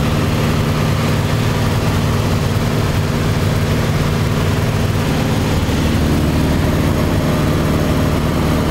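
Cabin noise of an Embraer EMB-712 Tupi light aircraft in flight: its four-cylinder Lycoming O-360 engine and propeller running with a steady drone.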